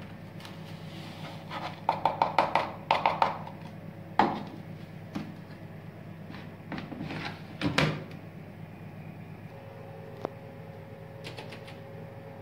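Hard plastic knocks and rattles: a blue plastic detergent scoop tapped quickly several times against a washing machine's plastic dispenser drawer as the powder is shaken out, then a single sharp knock. A few seconds later comes a further clatter as the dispenser drawer is slid shut.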